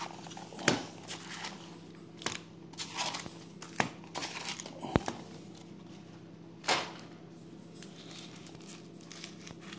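Wrapped baseball card packs crinkling and rustling as they are pulled from a card box and stacked on a table, with a few sharp clicks as packs are set down.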